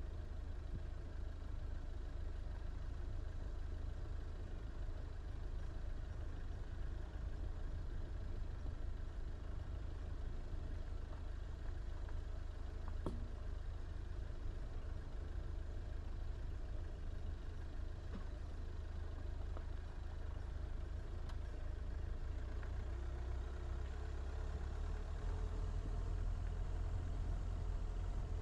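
Steady low rumble of a car driving along a rough, patched country road: tyre and engine noise heard from an on-board action camera, with a faint tick about halfway through.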